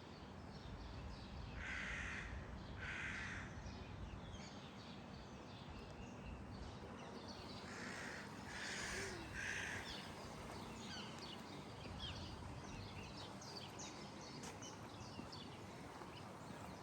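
A bird giving harsh calls: two a couple of seconds in, then three more in quick succession about eight seconds in. Faint small chirps and light footsteps continue underneath.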